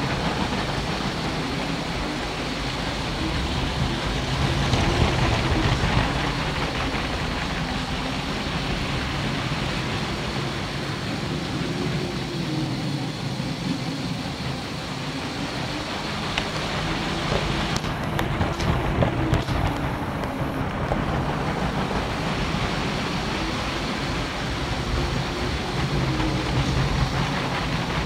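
Steady whirring and rumble of a running LEGO layout: small electric motors driving the Ferris wheel and trains, with the rattle of wheels on plastic track, and a few clicks about two-thirds of the way through.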